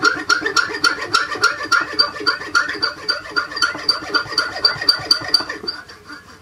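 A hand-held nut-slotting tool cutting string slots into a resonator guitar's nut. It makes quick, even back-and-forth rasping strokes, about four a second, each with a squeaky ring, and stops near the end.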